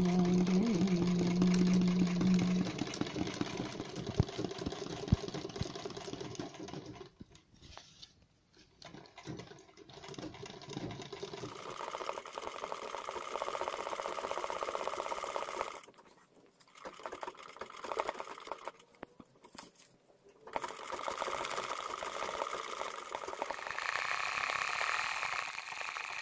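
Sewing machine stitching machine embroidery, running in stretches of a few seconds. It stops briefly about seven seconds in and again around sixteen and nineteen seconds.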